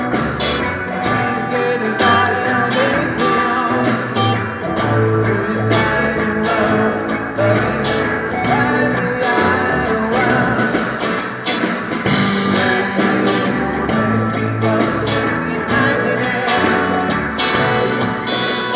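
Live band playing: two electric guitars, electric bass and a Tama drum kit, with a man singing over them.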